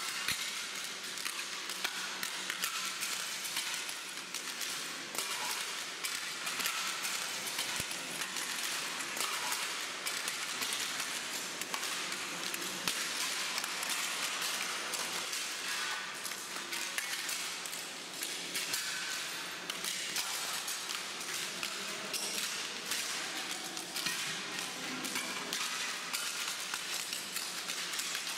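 Dense clinking and crackling of loose white tiles laid over the floor as many people walk across them, a continuous patter of small brittle clicks.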